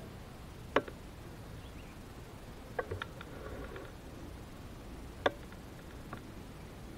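A few sharp clicks over a faint steady background hiss: one about a second in, a quick cluster of three near three seconds, a loud one a little after five seconds and a weaker one near six.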